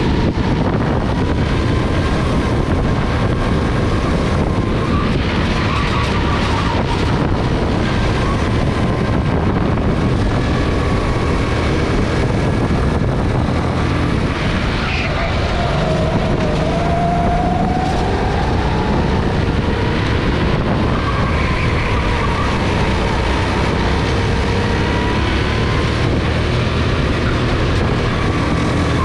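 Go-kart engine running hard on track, heard from the kart itself; its note falls and rises with the throttle through the corners, with a brief drop about halfway through before it climbs again.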